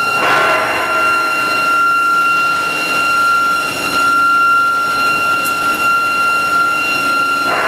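Medium-frequency induction pipe expansion machine running: a steady high-pitched whine with overtones over a constant mechanical rumble, with a brief swell of noise near the start and again near the end.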